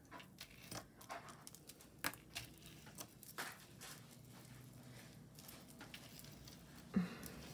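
Faint, irregular light clicks and taps of metal chandelier earrings, with dangling metal discs, being handled and laid down on a tabletop.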